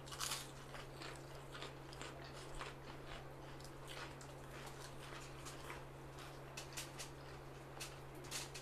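People chewing and biting food eaten by hand, with many small clicks and crunches, over a steady low hum.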